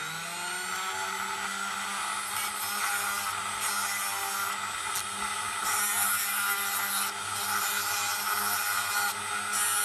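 Dremel rotary tool running at high speed, spinning an olive-pit prayer bead on a needle mandrel, its steady whine rising to full speed in the first second. 400-grit sandpaper hisses against the spinning bead in bouts as it is pressed on and eased off.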